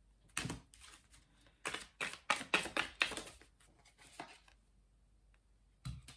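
Tarot cards shuffled by hand: a quick run of papery flicks and slaps lasting about four seconds.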